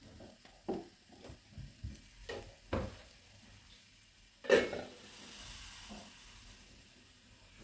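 A few light knocks and taps, then a stainless steel lid set down on an appam pan with a clank about four and a half seconds in, followed by faint sizzling of the batter cooking under the lid.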